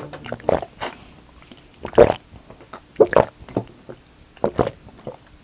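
A person chugging a bottle of drink in one go, with loud, irregular gulps of liquid about one or two a second.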